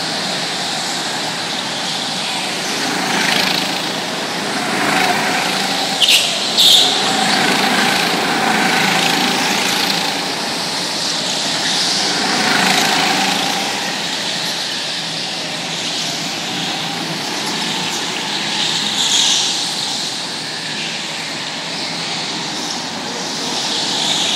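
Small go-kart engines buzzing as karts lap a track inside a large hall, their pitch rising and falling as they accelerate and pass. Two short sharp knocks about six seconds in.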